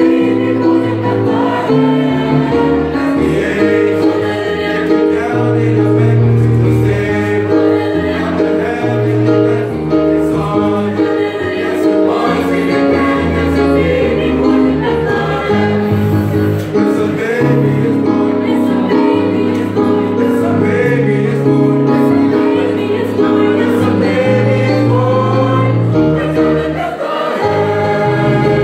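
Mixed high school choir, female and male voices together, singing a song in layered harmony with a sustained low bass part.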